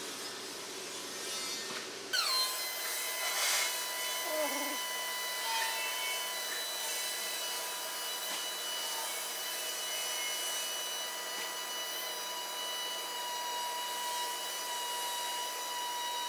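Small electric pump motor cutting in about two seconds in, its whine dropping briefly in pitch as it takes up load, then running at a steady high whine. This is typical of the glass lifter's vacuum pump running.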